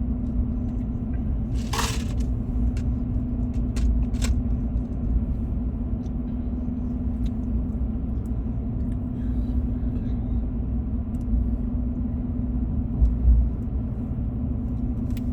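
Steady road and engine drone inside a moving car's cabin, with a low steady hum, and a few short clicks or rustles about two and four seconds in.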